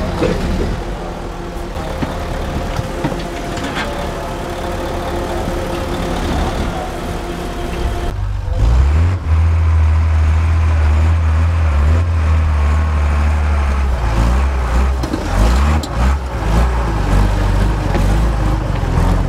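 Off-road competition truck's engine running under load. About eight seconds in it becomes much louder with a deep, steady drone, and its pitch rises and falls a few times near the end.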